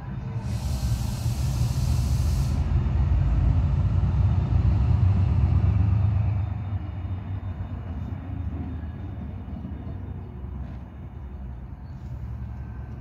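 Class 68 diesel locomotives' Caterpillar V16 engines working as the locomotives move off, a heavy low rumble that builds, peaks about four to six seconds in and then eases to a lower throb. About half a second in there is a two-second hiss of compressed air.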